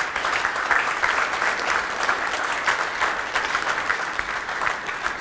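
Audience applauding with many hands clapping.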